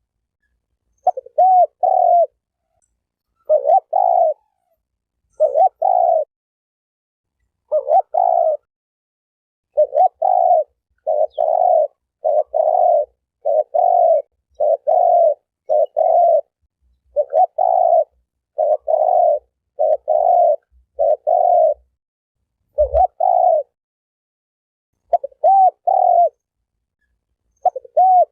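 Spotted dove cooing: short phrases of two or three coos repeated every second or two, with silent gaps between.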